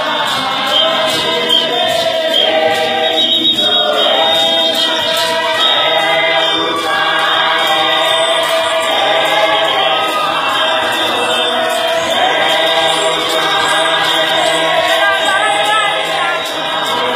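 A church choir singing, many voices together in long held notes.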